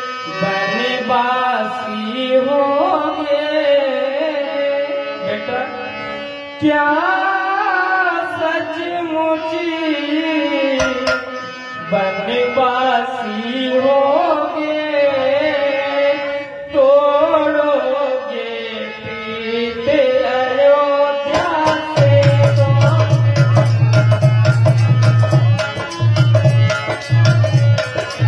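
A voice singing a devotional song into a microphone over a steady sustained drone. About three-quarters of the way through, a hand drum comes in with a fast, even beat.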